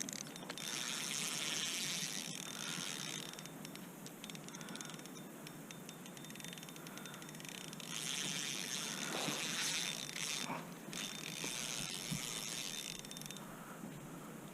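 Fishing reel clicking in two long runs of fast ratchet-like ticking, the second starting about eight seconds in.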